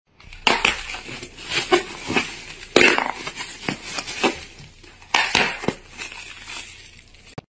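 Clear plastic bag crinkling and crackling as hands squeeze and handle it, in irregular bursts.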